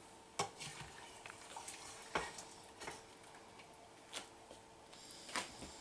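Kitchen tongs clicking lightly against the metal inner pot of an electric pressure cooker as cooked carrots are lifted out, about four short separate clicks, over a faint steady hum.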